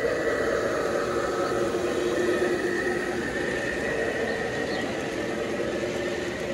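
G scale model diesel locomotive and its freight train rolling past on outdoor track, a steady hum and whine of the locomotive with the rumble of wheels on rail. Loudest as the locomotive passes near the start, easing off a little as the freight cars follow.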